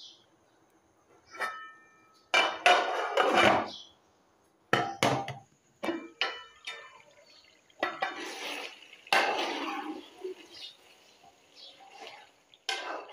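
Metal ladle and pot lid clanking and scraping against a metal cooking pot in a series of irregular knocks. One clink a little over a second in rings briefly.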